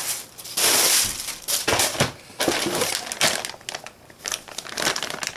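Clear plastic bags crinkling and rustling as they are handled and pulled out of a cardboard box, in irregular bursts of crackling.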